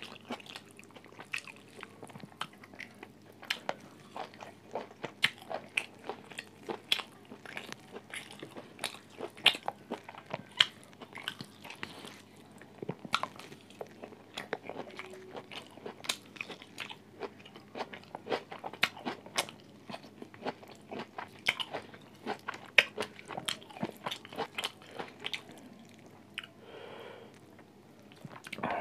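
A person eating a roast chicken and rice meal close to a phone microphone: a steady, irregular run of crunchy bites and chewing clicks, easing into a softer stretch near the end.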